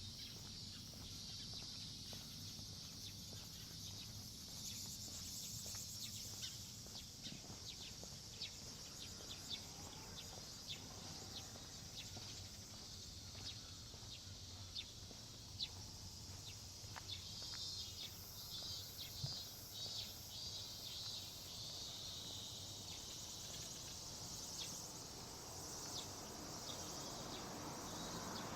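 Quiet early-morning street ambience: insects singing in a steady high chirr, with light clicking footsteps and a few faint bird calls. Near the end a car begins to approach.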